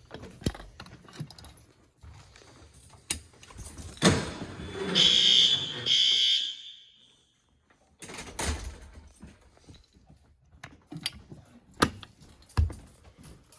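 Fire alarm notification horn sounding two short, high-pitched blasts about five seconds in, just after a loud knock. Scattered clicks and knocks of handling follow.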